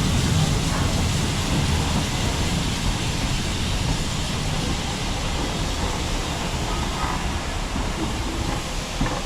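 Steam-hauled passenger train rolling past, a steady loud rumble of wheels and carriages that eases slightly toward the end.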